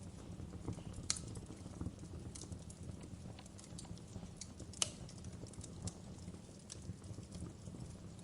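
Wood fire crackling: irregular sharp pops and snaps over a low, steady rumble, with the loudest pops about a second in and just before five seconds in.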